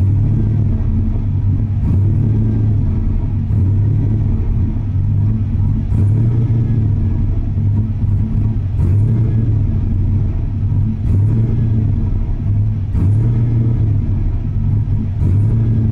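A vehicle engine idling, heard from inside the cab: a steady low hum that rises and falls slightly every two to three seconds.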